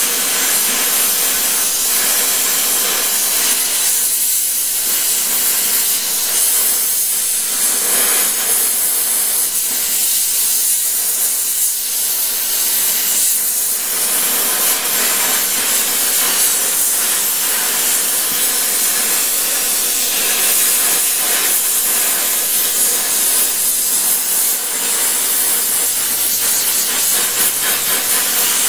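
Oxy-acetylene torch flame burning with a steady hiss while preheating thick steel before welding.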